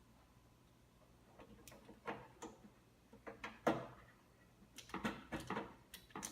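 Irregular clicks, knocks and rattles of cable connectors being handled and pushed onto their headers inside a desktop computer case. Quiet for the first second and a half, then the clicks come unevenly, the loudest a little past the middle.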